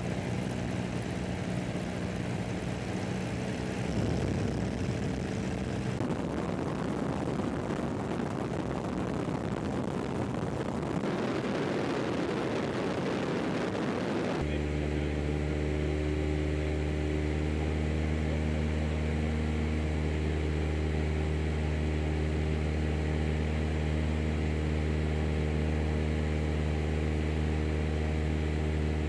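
Steady drone of an aircraft's engine, heard from aboard. Its tone changes abruptly at edits about 4, 6, 11 and 14 seconds in, with a rushing noise in the middle stretch. A deep, even hum holds from about 14 seconds on.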